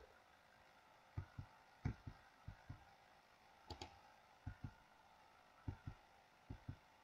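A computer keyboard key tapped seven times, the key selecting linked geometry in Blender; each tap is a pair of quick soft clicks as the key goes down and comes back up. The taps are faint, over a quiet room background.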